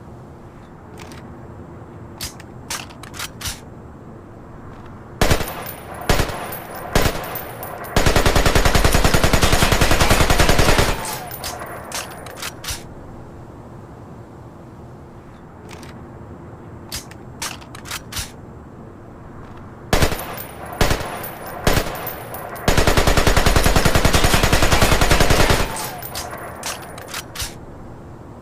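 AK-47 assault rifle firing: a few single shots, then a sustained fully automatic burst of about three seconds, and the same sequence again. Faint clicks come in between.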